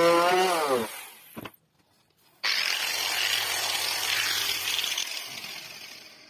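Handheld electric carving tool whining as it cuts wood, its pitch wavering under load, then switched off and winding down about a second in. After a short gap, a steady hiss runs for about four seconds and fades away.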